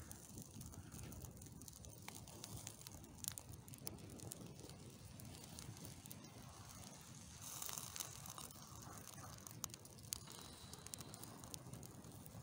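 Faint crackling of a burning cardboard model, with scattered sharp clicks over a low steady rumble. There is a brief hiss about eight seconds in.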